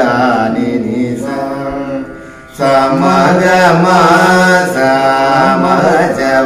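A man singing a Carnatic kriti in raga Hindolam, unaccompanied by words of speech, his pitch bending and sliding between notes. There is a brief break about two seconds in before he carries on.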